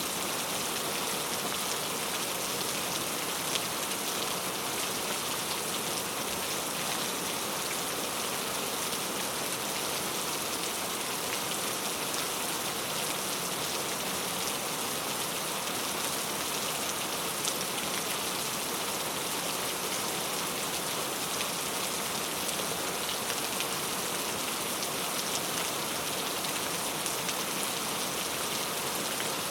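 Steady heavy rain falling on a surface, a dense even hiss with scattered drop ticks.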